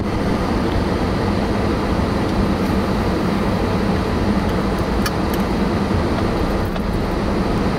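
Steady road and engine noise heard inside a moving car's cabin, with a constant low hum.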